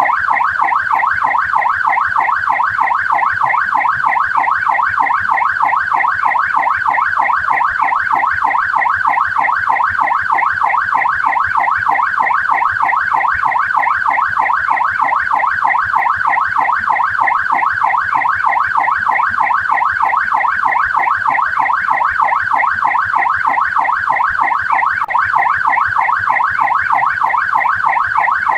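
Australian police car siren sounding continuously, a fast rising-and-falling warble that repeats many times over without a break.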